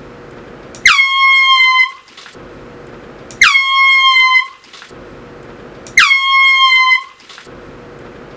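Air horn blown in three blasts of about a second each, roughly two and a half seconds apart. Each blast starts with a quick drop in pitch, then holds one steady, high blaring tone.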